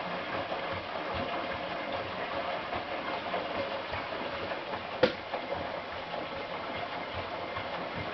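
Hotpoint NSWM 843C inverter-motor washing machine running through its rinse and spin cycle: a steady mechanical hum with a faint tone in it, and one sharp click about five seconds in.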